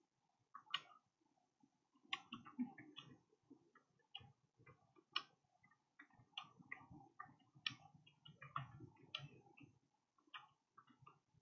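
Computer keyboard typing: faint, irregular key clicks in quick runs with a few brief pauses.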